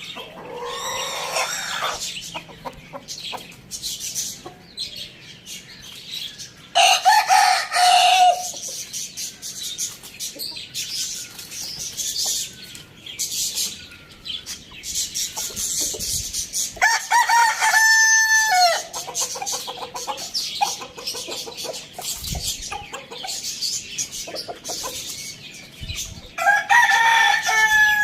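Rooster crowing three times, each a long pitched call, about ten seconds apart, with chickens clucking in between.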